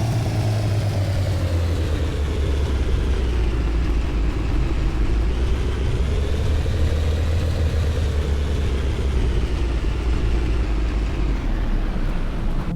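Car engine and road noise while driving, with a strong low hum whose pitch drifts slowly up and down with engine speed. The sound starts and stops abruptly.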